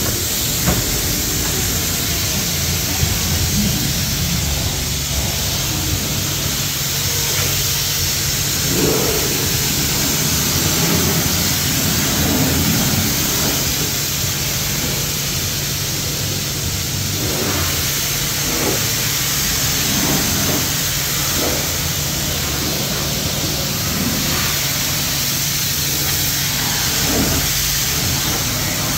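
Self-serve car wash high-pressure lance (Mark VII/WashTec Aquaspray) spraying a car's bodywork: a loud, steady hiss of water over the steady hum of the bay's pump.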